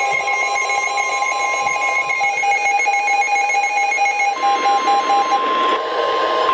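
Emergency alert tones from weather radio receivers: a steady, single-pitch weather radio warning alarm tone runs throughout, with a second pulsing, beeping alert alarm that cuts off about five seconds in. A hiss of static rises in the last couple of seconds.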